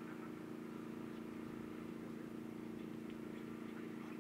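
Steady low mechanical hum that holds an even pitch and level, like an idling engine.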